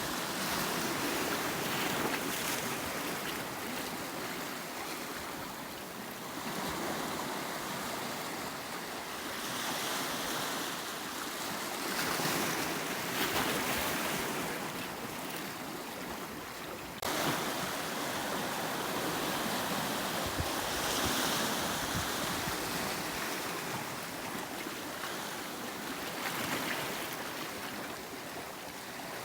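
Sea waves surging and washing against the rocky shore of Jeju's Yongmeori coast, in a continuous hiss that swells and ebbs every few seconds. One sharper crash comes a little past halfway.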